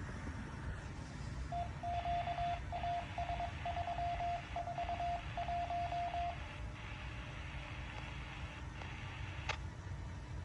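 A single beep tone keyed on and off in an irregular run of short and longer pulses for about five seconds, heard over radio hiss. A click comes near the end.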